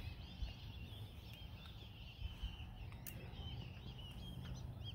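Birds chirping faintly and continuously over a low outdoor rumble.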